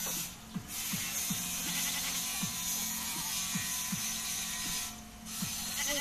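Steady high-pitched buzzing of insects, dipping out briefly twice, over short low notes falling in pitch about twice a second.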